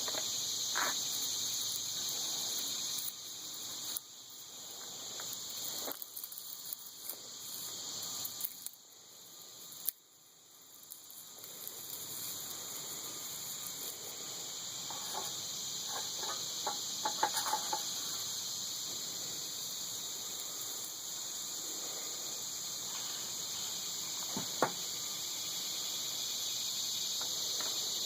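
Steady high-pitched chorus of insects, with a few faint scattered clicks and taps.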